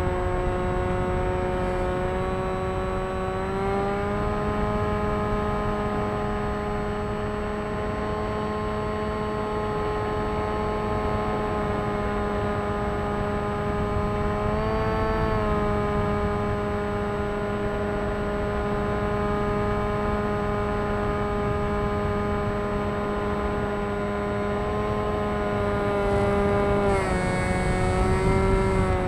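Electric motor and propeller of an FT Explorer radio-controlled model aircraft, recorded by its onboard camera: a steady whine whose pitch steps up about four seconds in, surges briefly about halfway, and drops and recovers near the end as the throttle changes, over wind rush.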